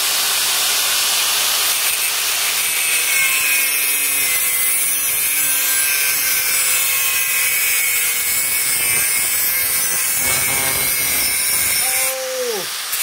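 Angle grinder with a thin cut-off disc cutting through aluminium channel: a steady, high-pitched grinding hiss, with its pitch dropping briefly near the end.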